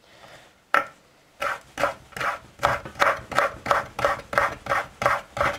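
Kitchen knife chopping strips of lemon peel on a wooden cutting board, a steady run of blade strikes at about three a second. The strikes begin after a short pause, just under a second in.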